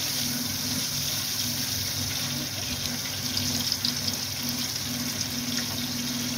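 Float dough (Trinidad fried bake) deep-frying in hot oil, a steady sizzle with a low steady hum underneath.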